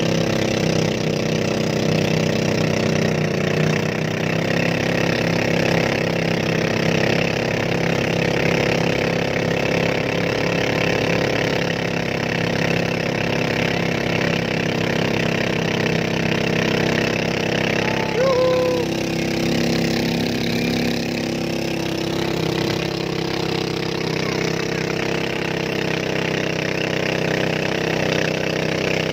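Small boat engine on a motorized bangka running steadily, a continuous motor drone that dips slightly about 20 seconds in.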